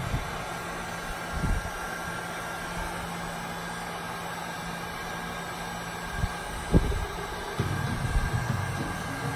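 Heat gun running, a steady fan whir with even hiss and a low hum, blown over wet resin on an ocean resin pour. A few soft knocks come about a second and a half in and again around six to seven seconds in.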